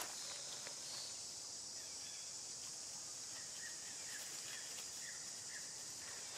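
Steady high-pitched drone of insects, with a run of faint short chirps through the middle and a few soft clicks.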